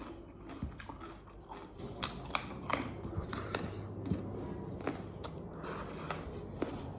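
Close-miked chewing and biting of pork curry with rice. Quiet at first, then from about two seconds in a run of sharp crunches and clicks as the food is bitten.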